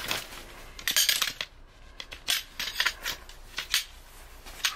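Metal poles of an ultralight folding camping cot clinking and knocking against each other as the frame is pulled from its bag and unfolded: a quick flurry of clicks about a second in, then scattered single clicks.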